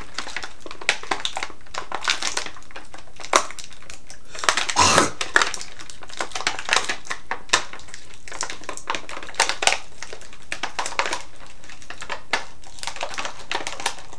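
Toy packaging being handled and opened: irregular plastic crinkling with scattered sharp clicks and snaps, the loudest crinkle about five seconds in.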